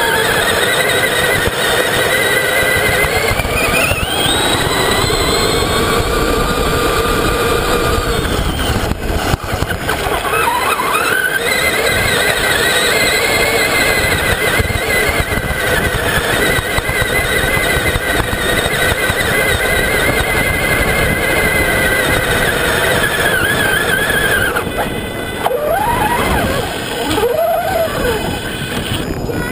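Traxxas Summit RC truck's electric motor and gears whining, the pitch climbing as it speeds up, dipping and climbing again about ten seconds in, then holding a steady whine. Near the end the whine falls away, with a couple of short revs, over a steady hiss of tyres on sand.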